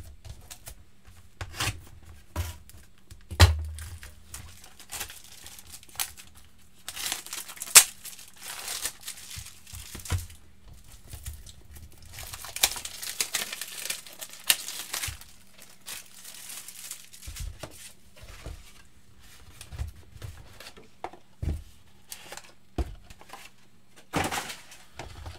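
Plastic shrink wrap being torn and crinkled off a trading-card hobby box, in two longer rustling stretches, with scattered taps and knocks as the cardboard box is opened and handled.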